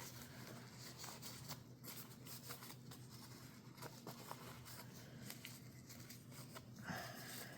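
Faint rubbing and scraping of the disassembled knife parts being wiped down to remove cleaning alcohol, with a few small clicks of the metal parts.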